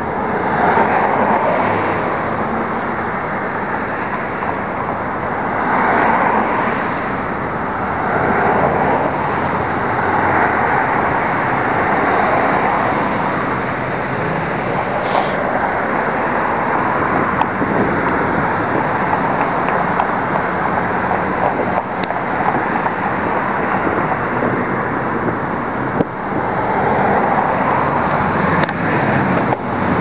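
Wind rushing over the camera microphone in swells every few seconds, mixed with the sound of car traffic.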